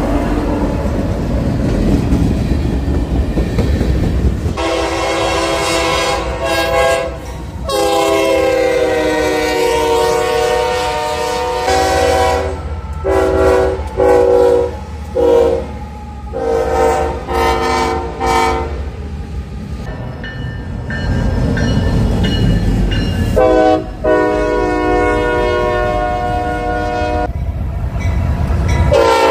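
Norfolk Southern diesel freight locomotives passing, sounding their air horns in a chord in a series of long and short blasts over the low rumble of engines and wheels. The first few seconds hold only the rumble.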